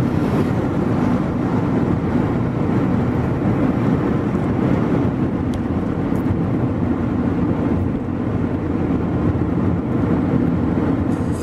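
Steady rumble of a road vehicle on the move: engine and road noise, even throughout, with no sudden events.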